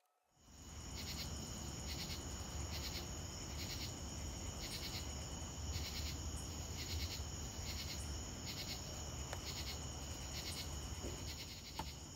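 Night insects, crickets: a steady high trill with a pulsed chirping about once a second, over a low steady rumble. It starts about half a second in.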